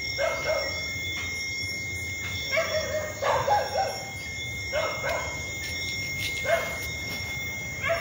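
A dog barking at intervals: short calls about seven times, over a steady high-pitched whine.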